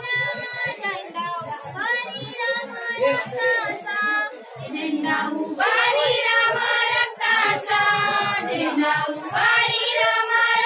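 A group of women singing a folk song together in high voices, in short repeated phrases.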